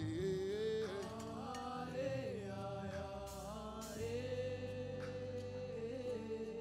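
Live gospel praise music: a singer's melodic line over band accompaniment, settling into one long held note about four seconds in.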